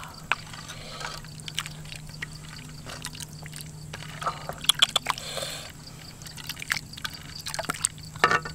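Snake soup being served from a pot into a clay bowl: broth pouring and sloshing, with scattered clicks and knocks against the pot and bowl, busiest around the middle.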